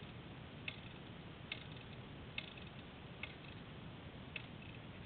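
Sharp mechanical clicks about once a second from a flooded four-stroke dirt bike's kickstarter as it is kicked over again and again without the engine catching, clearing out the flooding.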